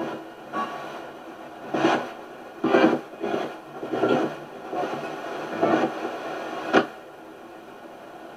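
Spirit box sweeping through radio stations: short choppy bursts of radio sound and static, roughly one a second, with a low hiss between.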